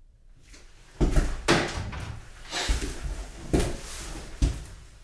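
A series of five thuds, each followed by a scraping or rattling noise, roughly a second apart after a quiet first second, like something being knocked and handled.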